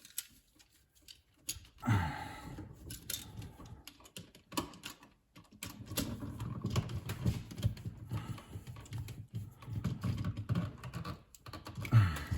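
Screwdriver tightening the terminal screw on a GFCI receptacle to clamp the wire, a run of small irregular clicks and scrapes starting about two seconds in.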